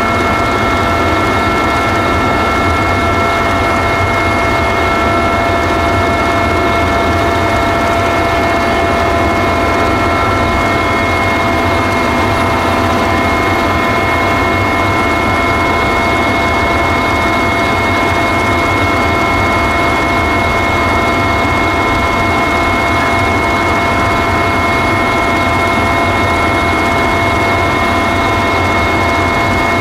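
Helicopter in flight heard from on board: a steady, loud mix of rotor and engine rumble with a constant high turbine and gearbox whine.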